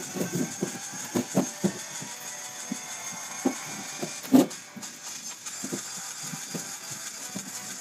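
Irregular dull knocks and thumps with no steady beat, one much louder knock about four and a half seconds in, over a faint steady high hiss.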